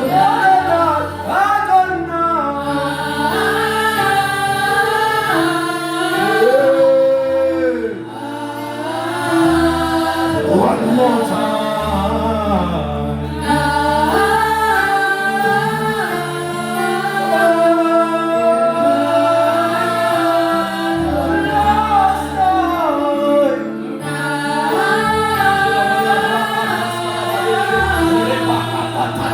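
Gospel worship music: voices singing a slow song over held backing chords and a stepping bass line.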